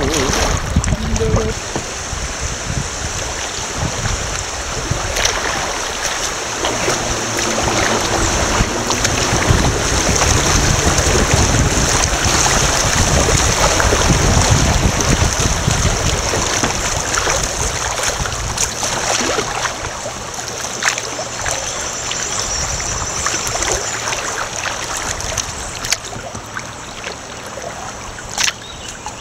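Creek water rushing and splashing around a kayak's hull as it runs a choppy riffle, with a low rumble on the microphone. The rush eases over the last several seconds as the water turns calmer, with a few sharp knocks near the end.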